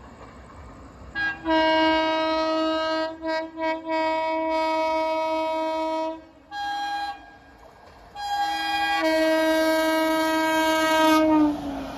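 WAP7 electric locomotive's horn sounding as it approaches: a long low blast from about a second in, broken by a few quick stutters, then a short higher-pitched toot, another higher toot that runs straight into a second long low blast ending shortly before the close.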